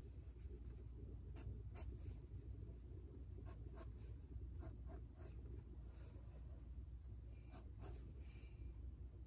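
Ink pen tip scratching across sketchbook paper in short, quick strokes, with a longer stroke near the end. A faint, steady low hum sits underneath.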